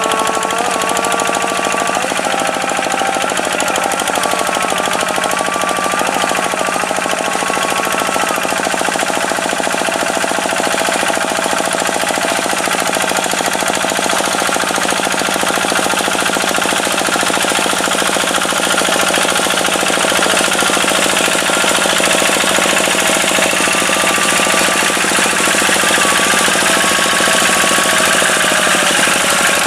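Tractor diesel engine running steadily with a rapid, even clatter.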